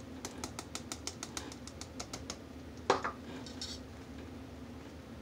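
Small plastic measuring cup clicking lightly against the rim of a plastic mixing bowl in a quick run of taps, then set down on the countertop with a single knock about three seconds in. A faint steady hum sits underneath.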